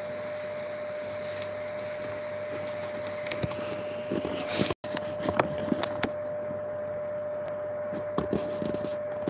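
Steady rush of storm rain and wind heard from behind a window, with a constant hum under it. From about three seconds in come irregular taps and clicks, and the sound cuts out for an instant near the middle.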